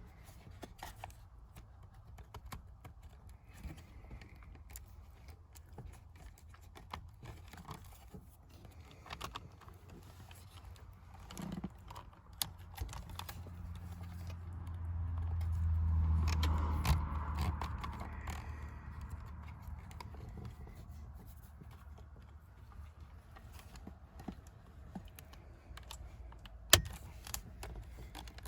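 Scattered light clicks and taps of hand tools and loose parts being handled during dashboard disassembly, with a low rumble that swells and fades around the middle and one sharp click near the end.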